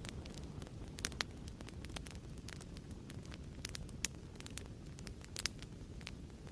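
Fireplace crackling: a steady low rumble of burning wood with frequent small sharp pops and snaps, the loudest about a second in, at four seconds and at five and a half seconds.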